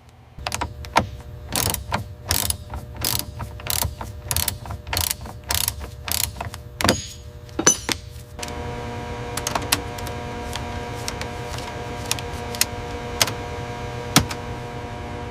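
Sharp mechanical clanks or ratchet-like strikes, about two a second, for roughly the first half. About eight seconds in they give way to a steady machine hum with a few isolated clicks.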